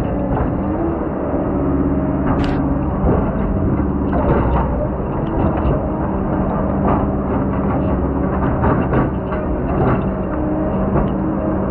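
Heavy diesel logging machinery running steadily under load, with frequent knocks and clanks throughout.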